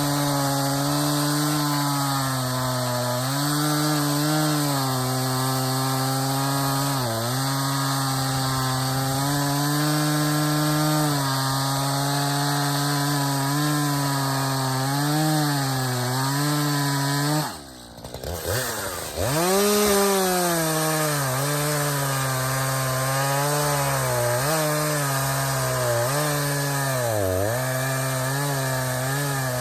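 Echo CS-590 Timber Wolf two-stroke chainsaw at full throttle cutting through hardwood maple, its engine pitch sagging and recovering again and again as the chain bites. About 18 seconds in, the engine bogs down and nearly stalls as the freshly sharpened chain grabs, then revs back up and keeps cutting.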